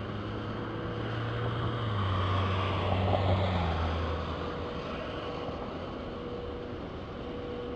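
A vehicle passing on the wet road outside: its low engine note swells to a peak about three seconds in, drops in pitch as it goes by and fades out before five seconds, over a steady hiss.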